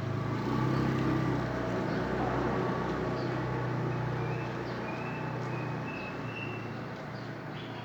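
Bus engine running with a steady low hum that slowly fades.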